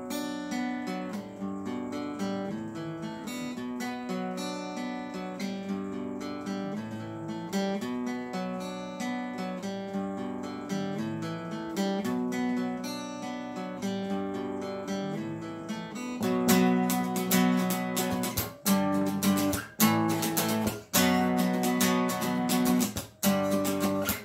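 Takamine acoustic guitar played by hand. For about sixteen seconds it is picked notes and chords, then louder strumming sets in, with short breaks between phrases.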